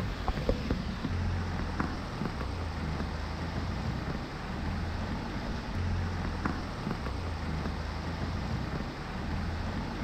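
Steady rain with wind gusting on the microphone in low rumbling stretches, a few faint raindrop ticks, over the rushing of a flood-swollen river.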